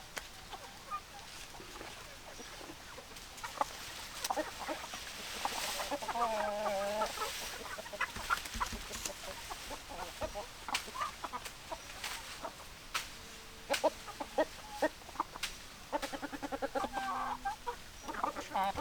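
Chickens clucking: scattered short clucks and sharp clicks, a longer wavering call about six seconds in, and a quick run of repeated clucks near the end.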